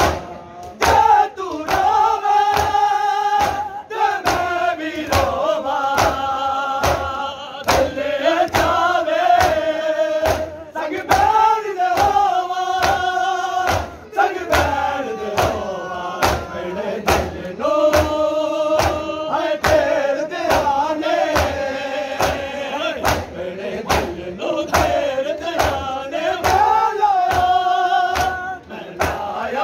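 Male voices singing a noha (Muharram lament) in unison, over the steady beat of a crowd's sharp matam hand-slaps on bare chests.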